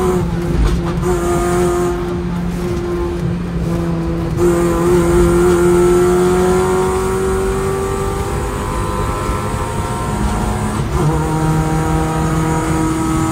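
Car engine running steadily under load, its pitch climbing slowly for several seconds and then dropping suddenly about eleven seconds in.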